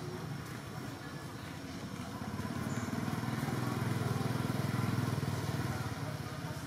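Motorcycle engine passing by, growing louder to a peak about five seconds in and then fading away.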